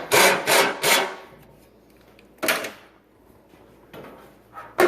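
Short clunks and scrapes from working a damaged truck fender loose: three quick ones in the first second, another about two and a half seconds in, and one more at the end.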